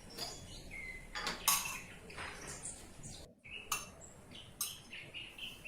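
Kitchen dishes and utensils clinking and knocking, a handful of separate sharp knocks, the loudest about one and a half seconds in.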